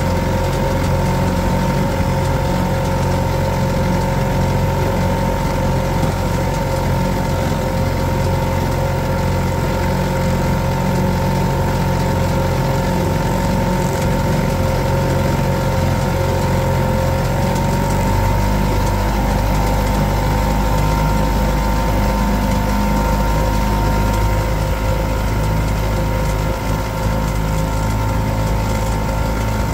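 Motorboat engine running steadily under way, with a steady whine over a low rumble; the engine note shifts a little about two-thirds of the way through.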